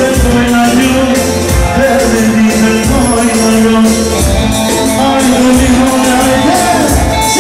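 Loud music with a steady drum beat under a held melody line.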